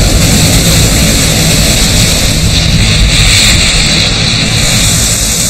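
Southern right whale crashing back into the sea after a breach: a sudden loud crash, then a steady rush of spray and churning water.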